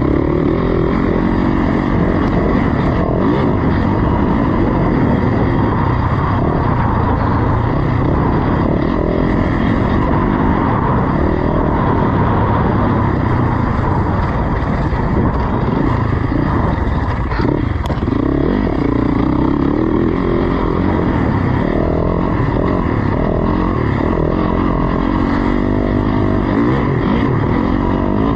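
Dirt bike engine running hard while ridden off-road, its pitch rising and falling over and over as the throttle is worked on and off. A single sharp knock sounds about two-thirds of the way through.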